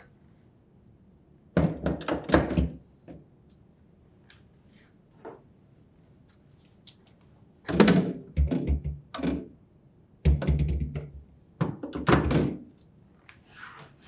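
Glass refrigerator shelf assemblies with plastic frames knocking and clicking against the slotted rear rails and plastic liner as they are hooked into their slots and set down. There are three bursts of quick knocks, with a couple of lone clicks between the first two.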